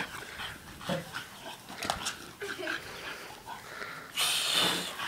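A dog giving small whimpers and yips while playing, with a short, louder rush of breathy noise about four seconds in.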